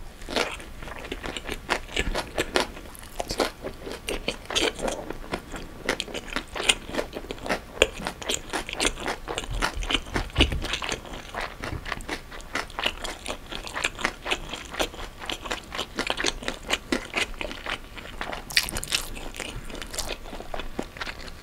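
Close-miked chewing of a Vietnamese rice-paper spring roll (월남쌈), a steady run of short crisp crunches from the fresh lettuce and vegetables inside.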